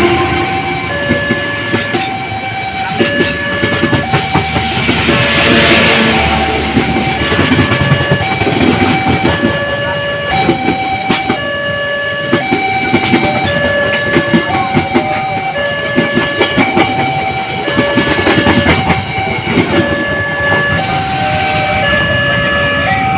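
Railway level-crossing alarm sounding a repeating two-tone electronic warning, over the rattle and clatter of a train passing on the rails.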